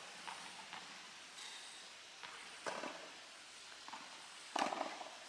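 Tennis ball being hit and bouncing during play: a few short sharp pops, the loudest about four and a half seconds in, with fainter taps between.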